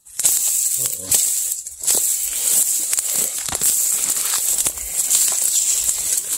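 Dense dry brush scraping, rustling and crackling close to the microphone as someone pushes through overgrown vegetation, with many small snaps of twigs.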